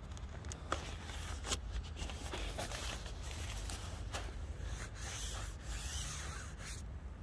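Fabric of an inflated air sleeping pad rubbing and crinkling under hands as it is gripped, bent and pressed, with scattered sharp crackles. The rubbing stops near the end, over a steady low rumble.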